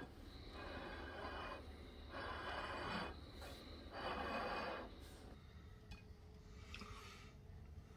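A person breathing heavily close to the microphone: a few breaths about a second long each, then quieter about five seconds in.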